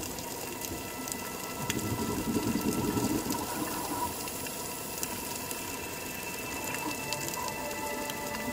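Underwater ambience: a steady watery hiss with faint scattered clicks and a few thin steady tones, growing rougher and louder about two to three seconds in.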